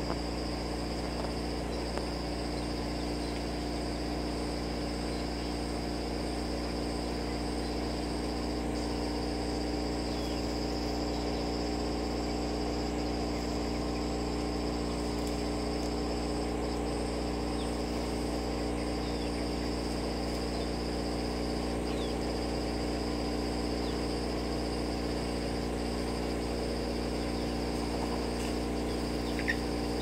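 A steady mechanical hum made of several held low tones, unchanging throughout, under a continuous high-pitched insect trill.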